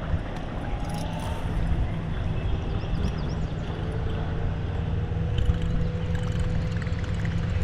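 Steady drone of a distant engine, holding an even low pitch throughout.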